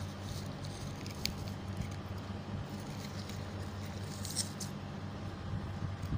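A steady low hum, with a few brief, faint crinkles of folded paper being handled about a second in and again a little after four seconds.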